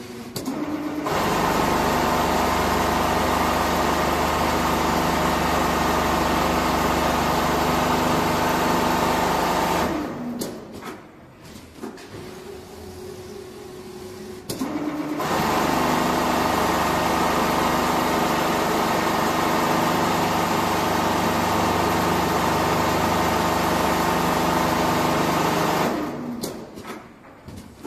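Four-head CNC pattern sewing machine stitching quilted fiber-filled jacket panels, running steadily at speed in two long spells of about ten seconds each. Between the spells, and again near the end, it drops to a quieter hum for a few seconds.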